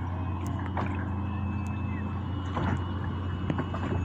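Steady low hum of a small boat motor with choppy water splashing around a moving kayak.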